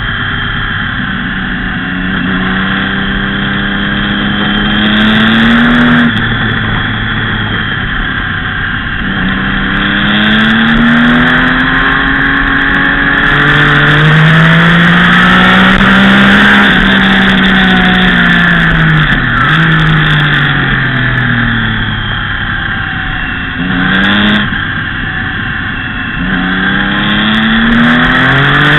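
Sport motorcycle engine being ridden hard around a track. Its pitch climbs through the revs and drops sharply at each gear change, about six seconds in and again near nineteen seconds, with short blips around twenty-four seconds, all under loud wind rush on the microphone.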